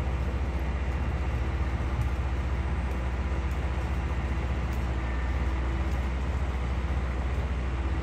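Heavy tree-removal machinery running: a steady low diesel engine drone with a fast even throb and a faint hum above it.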